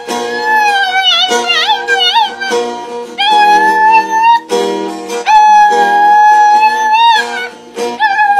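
A dog howling along to a strummed acoustic guitar: first a wavering howl that slides up and down in pitch, then two long held howls, with another starting near the end.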